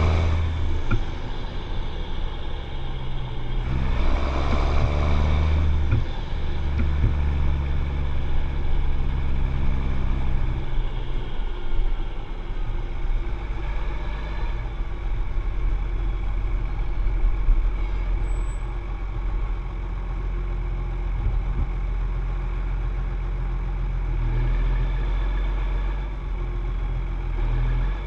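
John Deere 7710 tractor's six-cylinder diesel engine running steadily, louder for a couple of seconds a few seconds in.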